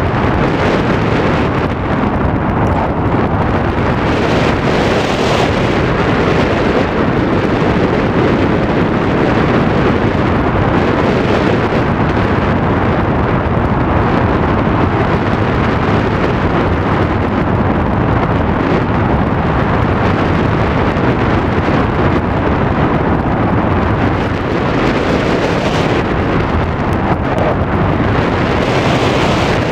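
Loud, steady rush of wind buffeting a microphone that is carried through the air in flight.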